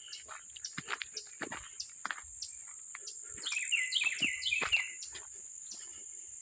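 A steady high hum of insects, broken a little past halfway by a quick run of about seven sharp, falling chirps from an eastern chipmunk. Scattered faint clicks and rustles come and go.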